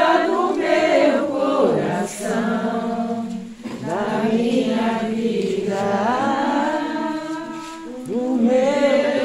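A group of people singing a religious hymn together without instruments, in long held notes.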